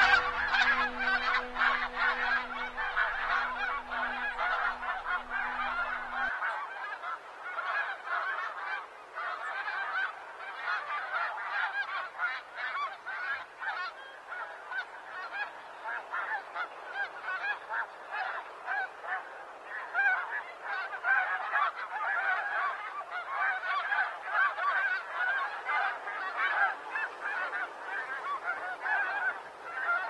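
A large flock of snow geese calling, a dense, unbroken chorus of many overlapping honks. A low held tone underneath stops about six seconds in.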